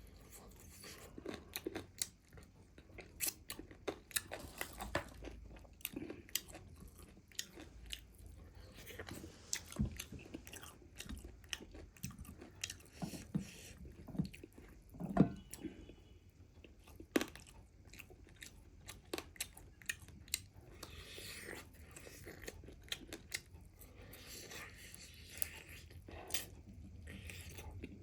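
Close-up chewing and biting of crispy fried chicken leg pieces, with irregular crunches and wet mouth sounds. One sharper, louder bite comes about halfway through.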